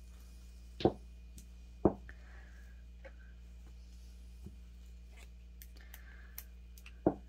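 Small plastic gel polish bottle and swatch stick being handled on a table: three sharp knocks, two about a second apart early on and one near the end, with a few faint clicks between.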